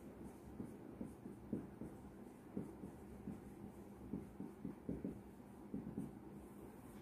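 Marker pen writing on a whiteboard: faint, irregular short strokes as a line of words is written.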